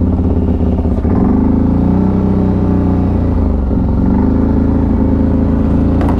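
CFMoto 1000 ATV's V-twin engine running at low speed. The revs rise about a second in, drop back a little after three seconds, then rise again and ease off near the end.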